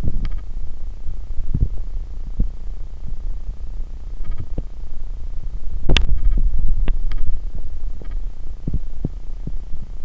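Logitech webcam's built-in microphone picking up a loud, low electrical hum with a throbbing quality. It is broken by irregular knocks and crackles, the strongest about six seconds in.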